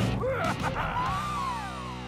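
Cartoon action score with sound effects: crash-like hits at the start, then a whistling tone that arcs and glides down in pitch through the second half, over a held chord.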